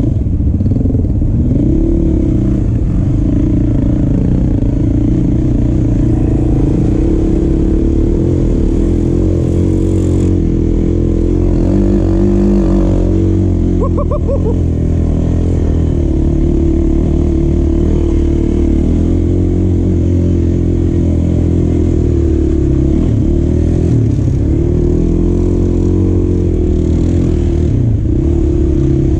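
Sport quad (ATV) engine running under throttle while riding on sand, its pitch rising and falling a few times as the throttle changes.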